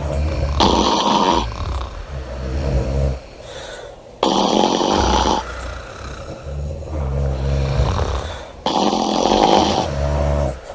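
Women snoring loudly, with a harsh, rasping snore about every four seconds, three times, and lower, deeper snoring between them.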